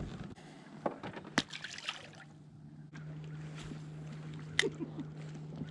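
A few sharp knocks and clicks, then a small boat motor begins a steady low hum about three seconds in and keeps running.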